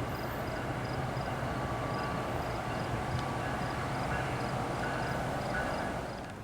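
Train rumbling at a station, with a steady low hum and a high ringing tick repeating about three times a second, as from a grade-crossing bell.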